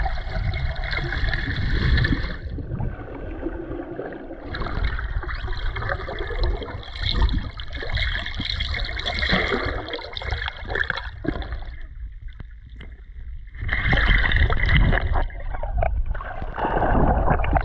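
Muffled water sloshing and rumbling as heard by an action camera held underwater. It comes in long surges, with a quieter lull about twelve seconds in.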